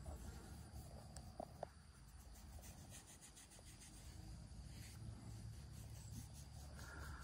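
Near silence: a faint low rumble with light rubbing noises and a few soft clicks about a second and a half in.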